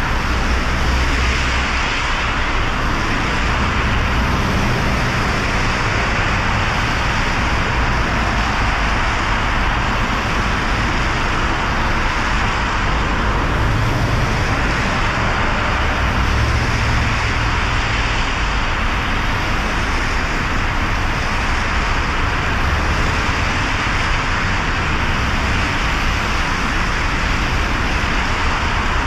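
A car driving on wet city roads in the rain: a steady hiss of tyres and rain over a low road and engine rumble that swells a little now and then.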